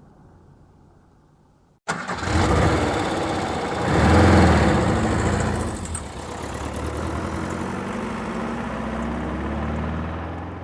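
A car engine starts about two seconds in. It revs up briefly to its loudest, then settles into a steady idle that fades out near the end. A faint, fading engine sound comes before the start.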